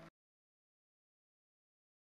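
Digital silence: the background music cuts off abruptly right at the start, and nothing follows.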